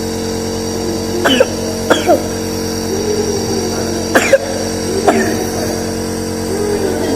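Nebulizer air compressor running with a steady buzzing hum while a sick young child coughs four times, short sharp coughs from a persistent bad cough after a fever.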